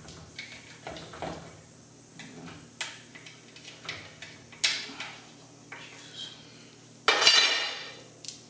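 Metal tools and steel parts clinking and clanking against each other, a few sharp knocks, with one louder ringing clank about seven seconds in.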